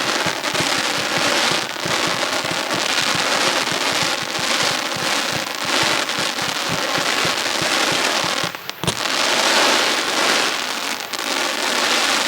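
Fireworks display: small aerial shells bursting one after another in a dense, rapid popping and crackling, with a brief lull about eight and a half seconds in.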